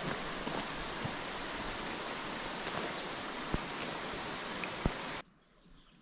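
Steady, even rushing noise with a few faint clicks, cutting off abruptly about five seconds in to near silence.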